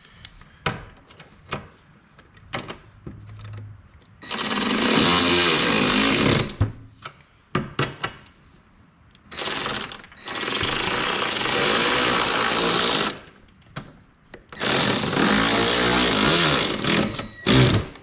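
Cordless impact driver tightening bolts in several runs of rapid hammering: about two seconds, then about three seconds after a short blip, then another two and a half seconds and a final short burst near the end, with light clicks and knocks of handling in between.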